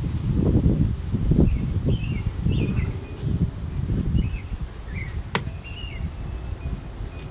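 Wind buffeting the microphone in uneven low rumbles, loudest in the first few seconds, with a small bird chirping faintly in short calls behind it. A single sharp click about five seconds in.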